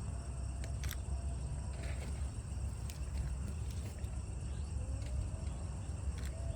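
Crickets chirring steadily over a continuous low rumble, with a few sharp clicks scattered through.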